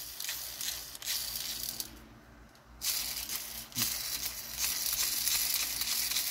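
Plastic McDonald's dragon toy being handled while its built-in spark striker is worked, giving a scratchy, rattling crackle that thickens about three seconds in. The striker no longer makes sparks.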